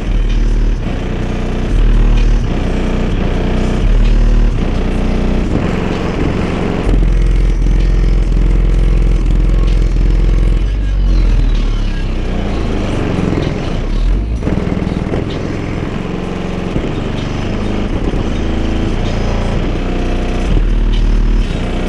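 Car-audio bass demo from three Sundown ZV5 18-inch subwoofers playing rap music at full volume in an SUV. Very deep bass notes pulse and swell, the longest held for several seconds, while the rear hatch glass and body panels rattle and buzz with them.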